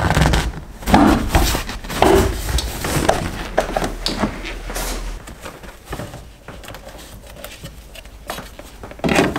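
A car's rear seat base being pulled out and the fuel-pump access cover lifted off the floor pan: a run of knocks, scrapes and rustles from handling the cushion and cover. The sounds come thickest in the first half and thin out after about five seconds.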